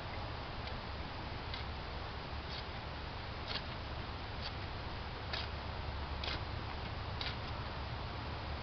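Steel shovel blade chopping into loose soil about once a second, mixing soil amendment into the backfill dirt, over a steady low rumble.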